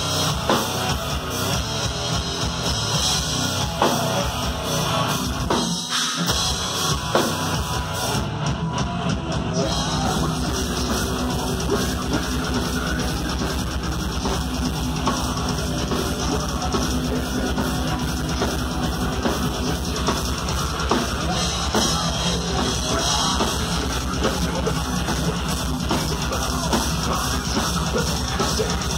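Heavy metal band playing live, with electric guitar and a busy drum kit, loud and steady throughout, heard from within the crowd.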